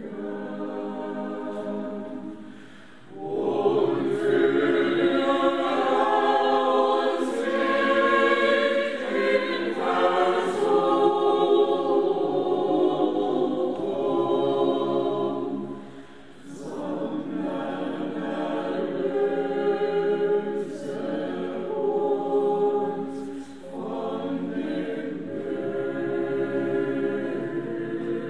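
A choir singing slow chant in long held chords, with brief breaks between phrases about 3 seconds in, about 16 seconds in and near 23 seconds in.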